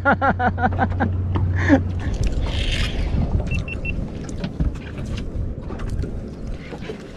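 Someone laughs over a steady low motor hum that stops about two seconds in. Wind and water noise follow, with scattered light clicks from handling a baitcasting fishing reel and three short high beeps.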